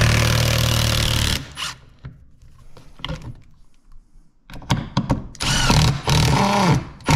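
Milwaukee M18 Fuel impact driver running in bursts as it backs screws out of a wooden strip on the wall. There is a long loud run at the start, short runs and clicks in the middle, and another longer run near the end.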